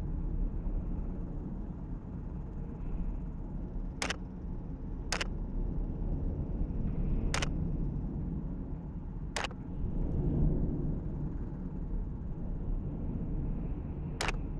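Steady low rumble of a helicopter's rotor and engine, with five short, sharp cracks spread through it.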